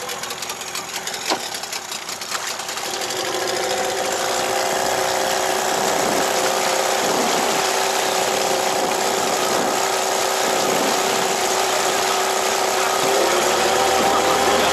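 Electric fishing reel winding line up from deep water with a steady motor whine, which builds over the first few seconds and then holds. A deeper hum joins near the end.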